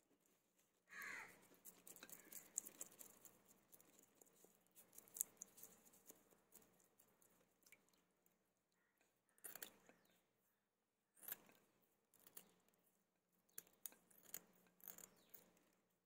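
Faint, scattered scraping and wet clicking of a knife working on Indian oil sardines in a basin of water, scaling and slitting them open, with a brief falling squeak about a second in.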